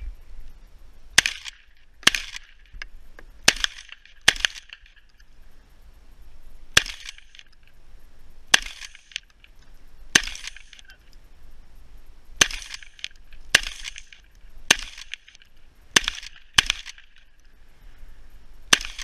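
Shotgun fired in a string of about a dozen shots at an uneven pace, mostly a second or more apart with a few quicker pairs. The shots are fired during a timed IPSC stage run.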